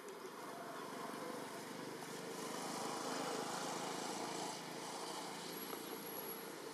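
A motor vehicle passing by: an engine and road noise that swell to a peak about three seconds in and then fade, with a faint steady high insect tone underneath.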